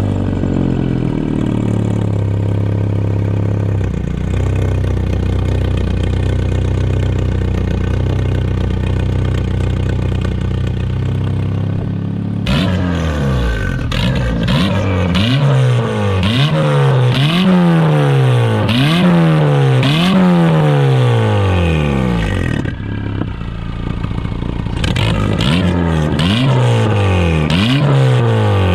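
Turbocharged Honda Civic Si K24 engine with an open wastegate dump routed out through the cowl: idling steadily, then about a dozen seconds in free-revved in quick blips, the pitch rising and falling about six times with sharp cracks at the peaks, a brief idle, and a few more revs near the end.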